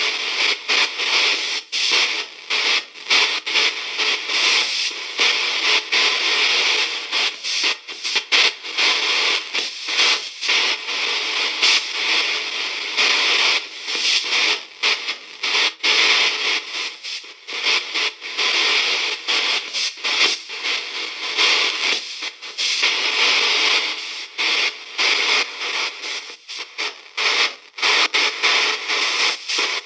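VBE KC-Ghostbox app sweeping through its audio banks: a radio-like hiss of static chopped into short fragments, with brief dropouts several times a second.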